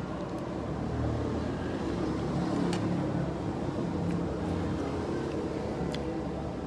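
Steady low rumble of background road traffic, with a few faint clicks.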